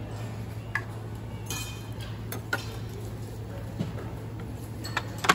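A few scattered light clicks over a steady low hum; the loudest click comes near the end.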